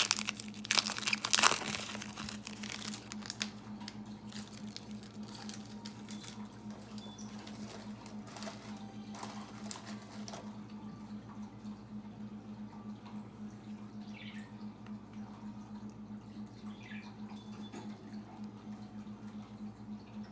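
Trading card pack wrapper crinkling and cards being handled, loudest in the first couple of seconds, then a few faint clicks of handling that give way to a low steady hum.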